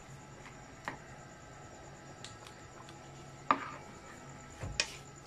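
A spatula knocking and scraping against a metal wok while a simmering stew is stirred: a few separate clinks, the loudest about three and a half seconds in.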